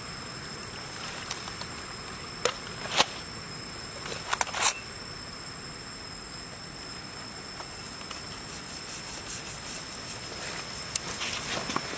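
A cleaver cutting through a large salmon on a wooden chopping block: a few sharp knocks and crunches of the blade, clustered about two and a half to five seconds in, with lighter ticks and one sharp knock near the end. A steady high-pitched insect drone runs underneath.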